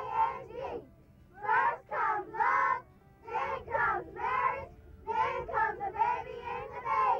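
A group of children singing a sing-song chant in short phrases of a few syllables, with brief pauses between them.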